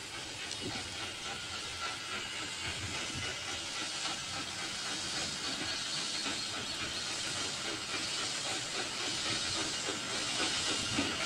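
Steam-locomotive sound of an OO-gauge model steam engine hauling a goods train: a steady hiss of steam, growing gradually louder.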